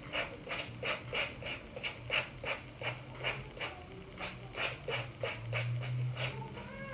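Plastic trigger spray bottle squirted over and over in a quick even rhythm, about three short spritzes a second, misting diluted shampoo onto the scalp.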